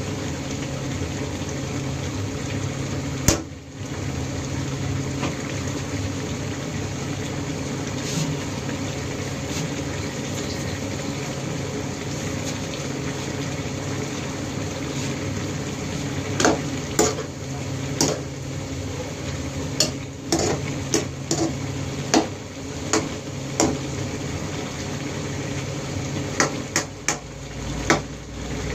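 Squid adobo simmering in its sauce in a frying pan, a steady bubbling hiss. A metal ladle clinks against the pan once a few seconds in, then in a run of sharp clinks and scrapes through the second half as the squid is stirred.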